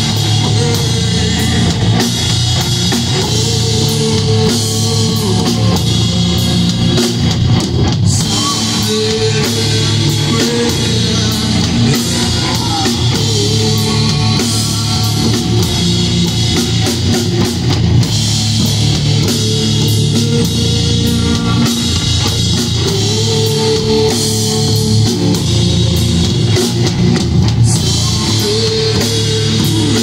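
Live doom metal band playing an instrumental stretch on electric guitar, bass guitar and drum kit, loud and without a break.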